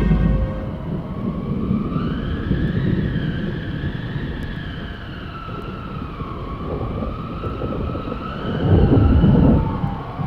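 Siren sound effect: one wailing tone that slowly rises and falls in pitch, over a low rumble that swells near the end.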